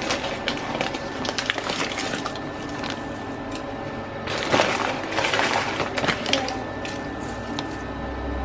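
Egg frying in a non-stick pan on a glass-top hob, crackling and spitting, over a steady hum of several held tones.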